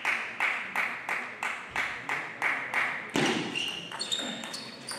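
Table tennis rally: the plastic ball clicking back and forth off the table and rackets at about three hits a second. About three seconds in comes a heavier hit, followed by scattered lighter ticks and short squeaks of shoes on the floor.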